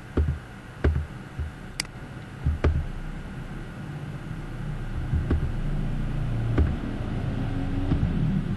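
A computer mouse clicking about six times at uneven intervals, over a low rumble that grows louder from about three seconds in.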